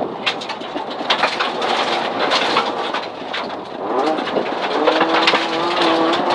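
2004 Mitsubishi Lancer rally car's engine heard from inside the cabin at speed on gravel: the revs climb sharply about four seconds in and then hold steady. Gravel clatters against the underbody throughout, as many short sharp ticks.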